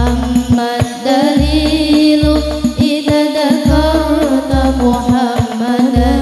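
A group of girls singing an Islamic devotional song (sholawat) into microphones, the melody carried with wavering, ornamented notes over accompaniment with deep bass notes and repeated drum hits.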